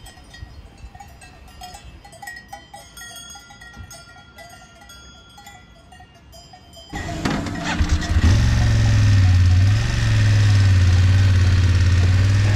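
Faint, thin clinking of cowbells. About seven seconds in, a motorcycle engine cuts in loud and runs steadily at a low, even pitch.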